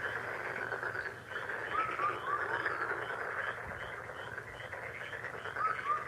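Wetland ambience: a dense chorus of frogs calling, with short rising chirps and, from about halfway, a run of evenly repeated higher notes.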